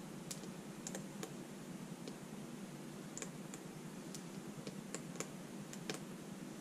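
Faint, irregular small metallic clicks and ticks of a lock pick working the pins of an American Lock S100 padlock held in a vise under top-of-keyway tension. About a dozen clicks come at uneven intervals over a faint steady hiss.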